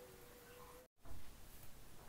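Near silence: faint room tone with a thin steady hum, broken by a moment of dead silence about a second in, followed by a brief soft low sound.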